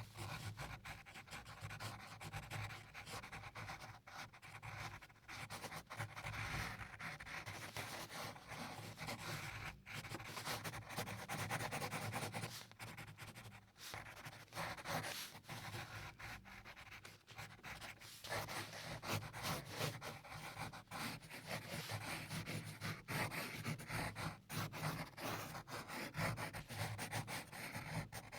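Pencil sketching on paper: quick, repeated scratching strokes that stop briefly a few times.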